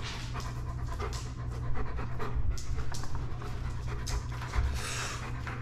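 A dog panting, a quick run of short hissy breaths, over a steady low hum.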